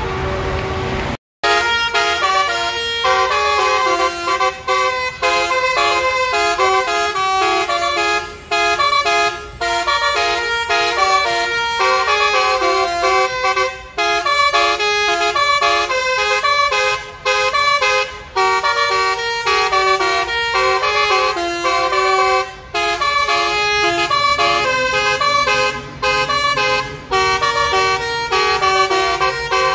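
Basuri-style musical bus horn, sounding through roof-mounted trumpets, playing a fast tune of stepped notes with short breaks between phrases. It starts just over a second in after a brief cut to silence.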